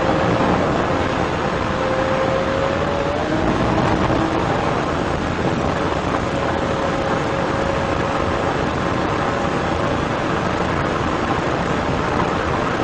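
Police cruiser driving at about 120 mph: a loud, steady rush of wind and road noise, with a thin steady whine over it that steps up a little in pitch about three seconds in.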